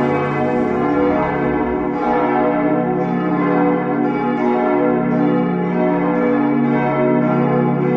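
Full peal of church bells: all the bells of the tower ringing together, their strokes overlapping in a continuous, steady wash of many tones.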